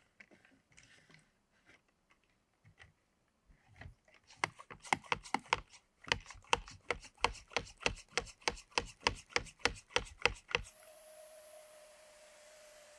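Hand pump-action garden pressure sprayer being pumped up, a fast even run of about four plunger strokes a second, then spraying anti-rot wood preservative in a steady hiss with a thin whistling tone.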